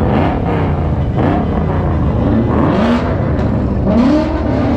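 Car engines revving, their pitch rising and falling several times over a steady low rumble of idling and slow-moving traffic.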